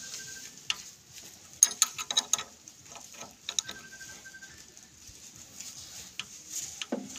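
Metal spanner clicking and scraping against the nut and adjusting screw of a công nông engine's valve gear as it is turned, with a quick cluster of sharp clicks about two seconds in and single clicks here and there.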